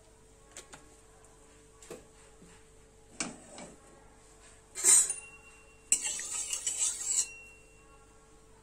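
Kitchen utensils knocking and clinking against an aluminium kadai, the loudest knock about five seconds in, then a spatula scraping and stirring in the oil-filled kadai for about a second and a half.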